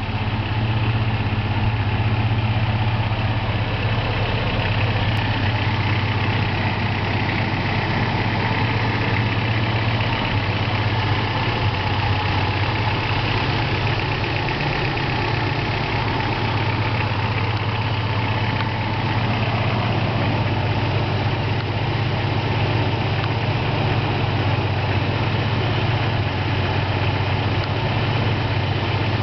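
1985 Toyota 4Runner's four-cylinder engine idling steadily, with an even low hum and no change in speed.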